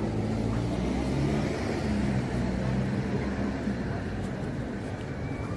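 A road vehicle's engine running close by, a steady low hum that eases off slightly near the end.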